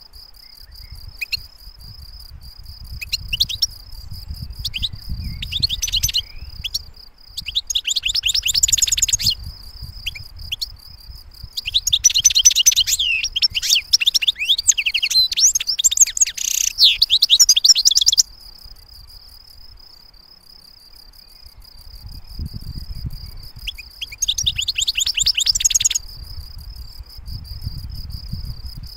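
European goldfinch singing: bouts of fast twittering and trilled phrases, the longest running about six seconds in the middle, over a steady high-pitched drone.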